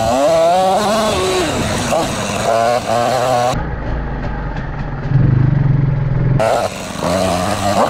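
Single-cylinder two-stroke engine of a 2020 KTM 300 XC-W TPI dirt bike, revving up and down as the throttle is worked on a trail climb. About halfway through it settles into low, steady running for a few seconds, then picks up again.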